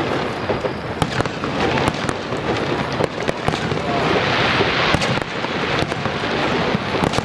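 Aerial fireworks shells bursting, with many sharp bangs and crackles one after another. A denser crackling rush swells about four to five seconds in.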